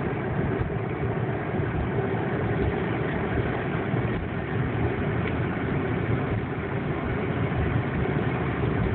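Steady engine and road noise of a car driving, heard from inside its cabin.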